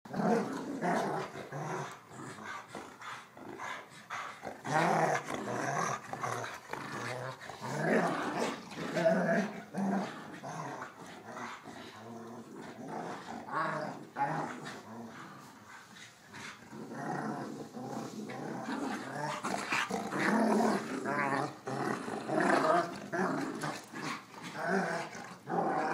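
Dogs growling in play while tugging on a toy, a Jack Russell terrier and a larger dog: the growls go on in rising and falling waves, easing briefly about two-thirds of the way through.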